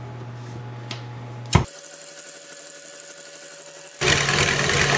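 A single sharp click about a second and a half in, then near the end a KitchenAid Classic stand mixer switches on suddenly and runs, its wire whisk beating egg whites.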